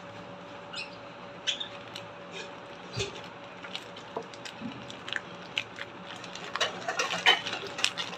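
Packaging being handled and unwrapped: irregular rustles and sharp crinkles, thicker and louder near the end, over a faint steady hum.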